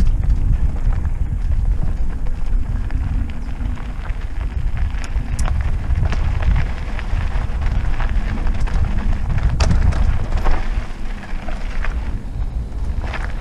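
Trek Roscoe 6 mountain bike rolling down a dirt forest trail: wind buffeting the microphone as a steady low rumble, with tyre crackle on the dirt and scattered clicks and rattles from the bike.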